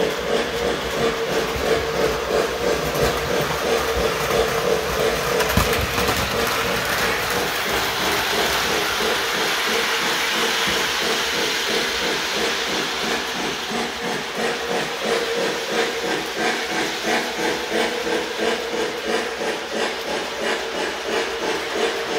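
O-scale three-rail model steam locomotive pulling passenger cars around the track, with a steady hum and a rhythmic steam hiss. The hiss swells louder about a third of the way in, then eases.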